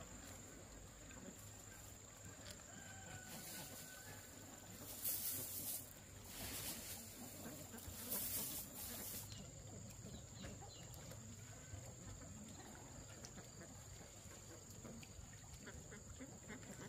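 Dry rice husks rustling as handfuls are poured over duck eggs in a woven basket, in a few short bursts around the middle.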